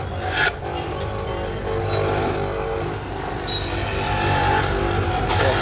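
Electric stainless-steel juicer running with a steady motor hum while green vegetables are pushed into its feed chute. There are a few brief knocks, and a hissing rush near the end.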